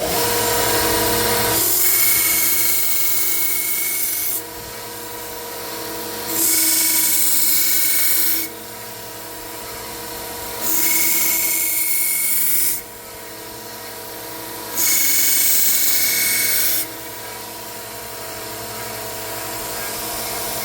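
1x30 belt sander running steadily, with a knife blade pressed to the moving abrasive belt four times for about two seconds each. Each pass adds a loud grinding hiss and a high ringing tone over the motor hum as the edge is ground and a burr is raised.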